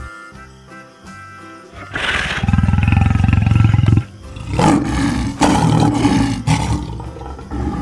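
Lion roaring twice over background music: one long, rough roar about two seconds in, then a second about half a second after it ends.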